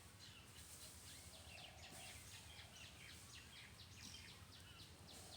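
Near silence with faint background bird chirping, short high chirps repeated several times a second.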